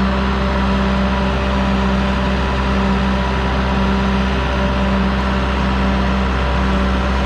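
2008 ASV SR-80 tracked skid steer's diesel engine running steadily at an even speed, a constant drone with no changes in pitch.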